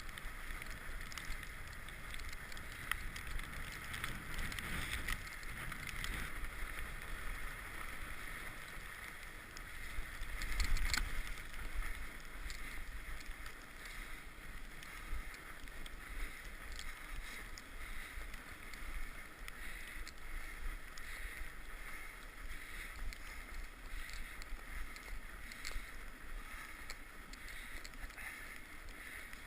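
Mountain bike riding along a trail: a steady rush of tyre and wind noise on a GoPro microphone, with small rattles and clicks, briefly louder and bumpier about ten seconds in.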